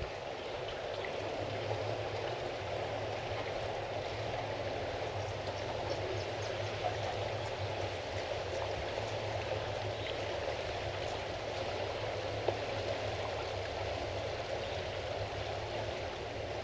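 Steady rush of moving water, with a low steady hum beneath it.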